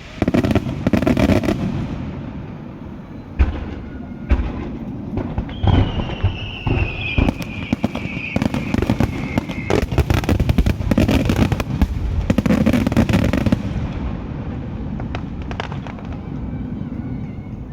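Aerial fireworks bursting: dense crackling and popping with repeated booms, busiest through the middle. From about six to ten seconds in, a long whistle slowly falls in pitch.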